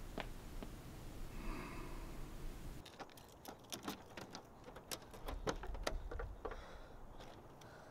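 A few faint steps, then, from about three seconds in, a rapid string of quiet clicks and light knocks as a car door is unlatched and opened.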